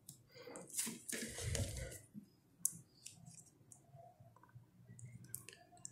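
Faint rustling and scattered clicks of a DVD box set being handled and turned over in the hands, busiest about a second in.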